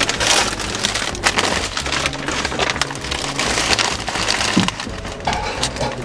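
Paper takeout bag crinkling and rustling as it is handled, a dense run of quick crackles, over background music.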